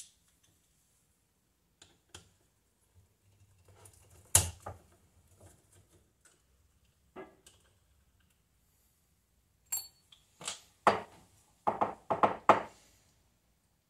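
Hand tools and small metal parts clicking and knocking while the throttle arm mounting bolts are taken off a bank of motorcycle carburetors. There is a sharp knock about four seconds in, and a quick series of ringing metallic clinks near the end.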